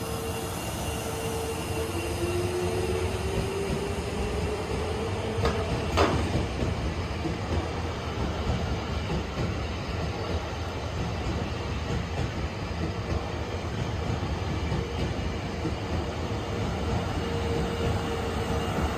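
JR East 651-series 1000-subseries electric train pulling out of the station and rolling past with a steady rumble of wheels on rail. A whine rises slowly over the first few seconds as it picks up speed, and there is a single sharp clack about six seconds in.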